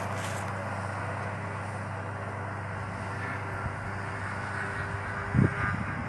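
Diesel engine of a John Deere 6620 tractor working under load as it pulls a three-furrow plough through stubble, a steady, distant drone. A brief low thump comes near the end.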